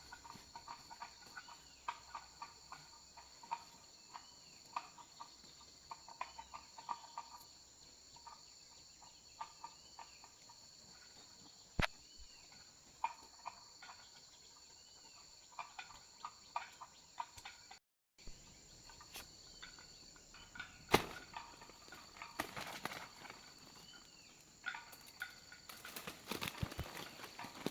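Forest ambience: insects trilling steadily at a high pitch, with scattered short chirping calls. A couple of sharp knocks stand out, and a stretch of rustling comes near the end.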